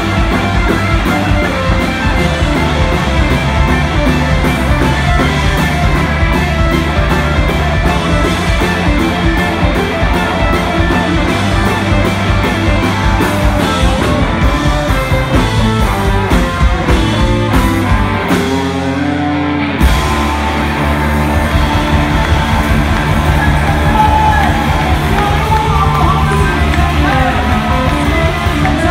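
Live rock band playing loud: distorted electric guitars, bass and a drum kit driving a steady beat. About two-thirds of the way through, the drums and bass drop out for a moment, then a single hit brings the band back in on held chords.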